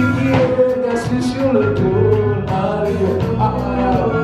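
Live church praise-and-worship music: a band playing with a voice carrying the melody over a steady bass line.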